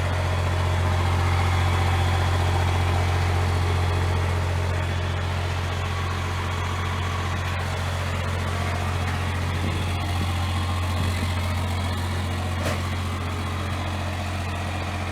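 Small diesel truck engine idling steadily with a low, even hum.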